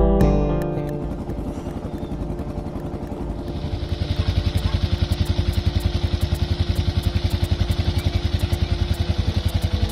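Motorcycle engine running with an even, pulsing beat that grows louder about three and a half seconds in, then holds steady.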